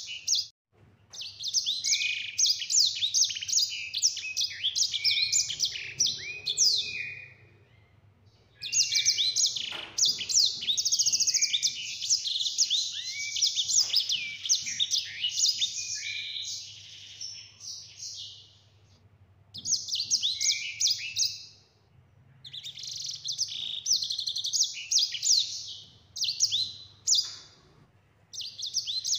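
A caged sanger finch singing a fast, high twittering and trilling song in long rolling phrases of several seconds, broken by short pauses.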